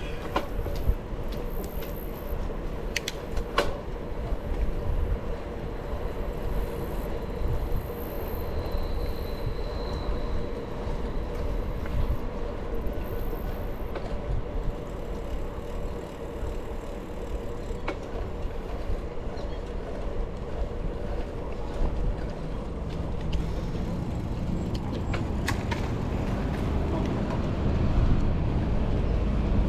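Bicycle riding along a paved trail: steady rolling noise from tyres and drivetrain, with wind rumbling on the microphone and occasional sharp clicks and rattles from the bike.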